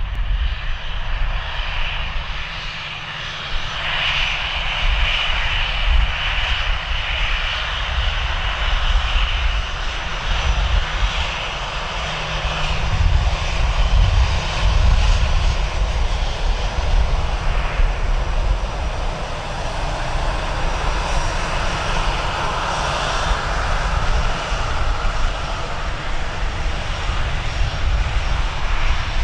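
Jet airliner's engines running loudly and continuously over a deep, unsteady rumble, with a high whine that comes in about four seconds in.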